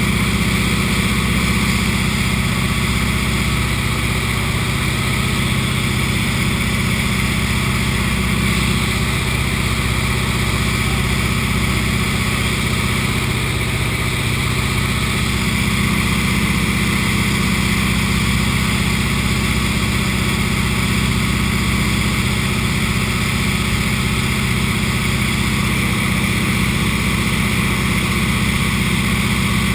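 Small propeller plane's engine and propeller droning steadily in flight, heard from inside the cockpit over the wind noise on the airframe.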